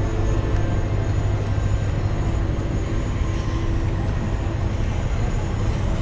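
A large engine running steadily, a continuous low hum with a few steady tones above it and no change in pitch.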